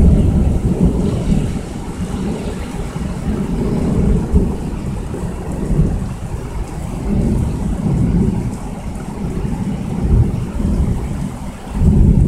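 Thunder rumbling in several long rolling swells over the steady hiss of heavy rain, the loudest swell near the end.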